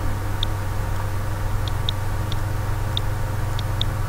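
Computer mouse clicking: about seven short, sharp ticks at irregular intervals, over a steady low electrical hum.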